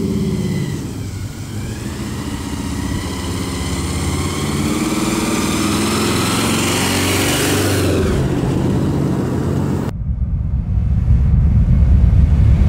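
A 1967 Dodge Coronet 440's engine, fitted with aftermarket headers, running as the car drives up, growing louder as it approaches. About ten seconds in it cuts off abruptly and gives way to a deep, loud rumble.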